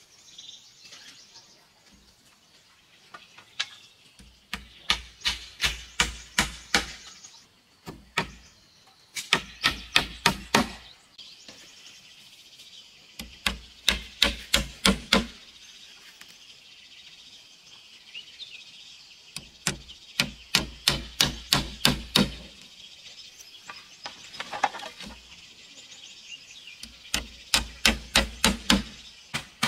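Hammer driving nails into the wooden slats of a chicken coop, in five runs of quick, even strikes, about three a second, with pauses between the runs.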